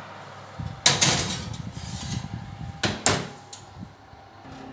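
A glass soufflé dish slid onto the wire rack of a Hotpoint Ariston oven and the oven door pushed shut: two sharp knocks about two seconds apart, with scraping between them.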